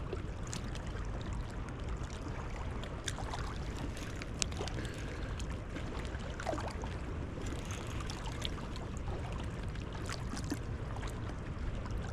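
High, flooded river water running steadily, with a low rumble and scattered faint clicks.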